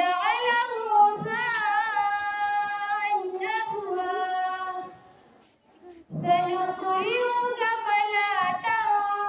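A girl's voice reciting the Quran in the melodic chanted style of tilawat: long drawn-out phrases with held, ornamented notes that glide up and down, broken by a pause of about a second halfway through.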